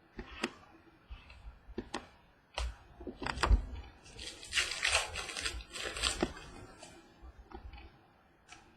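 Trading-card pack wrapper and cards being handled: scattered light clicks and taps, then about a second and a half of crinkling of the wrapper from about four and a half seconds in.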